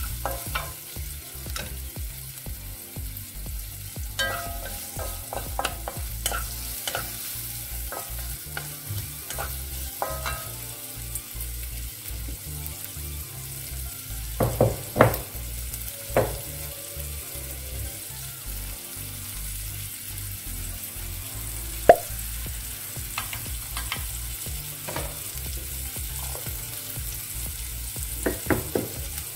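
Chopped onion, green chilli and tomato sizzling in a stone-coated frying pan as a wooden slotted spatula stirs and scrapes them. Scattered knocks of the spatula on the pan come throughout, with a cluster about halfway through, one sharp tap a few seconds later, and another cluster near the end.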